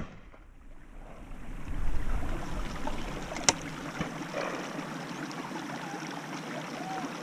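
Wind rumbling on the microphone, with one sharp shotgun shot about three and a half seconds in, quieter and further off than a shot from the shooter's own gun.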